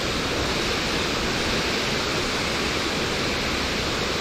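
Steady, even rushing of running water, with no pauses or changes.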